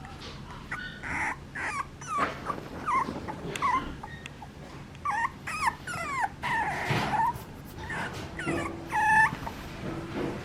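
Papillon puppy whimpering and whining in a string of short, high, wavering calls, with a louder, steadier yelp about nine seconds in.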